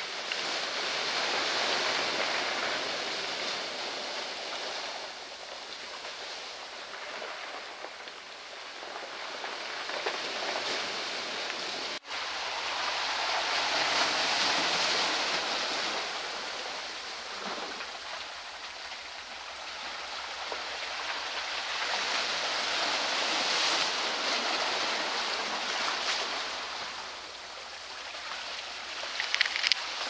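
Ocean surf washing in and draining back over rocks and pebbles: a steady rushing hiss that swells and fades in slow surges every ten seconds or so. A few sharp clicks come just before the end.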